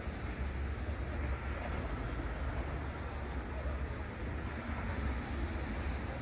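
Steady outdoor background noise of a crowded tailgating parking lot: an even hiss over a low, unsteady rumble.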